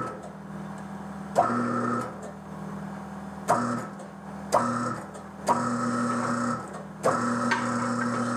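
Tire changing machine's electric turntable motor jogged on and off: five short runs, each starting with a clunk and holding a steady hum before it stops. The last run is the longest, about a second and a half from the end.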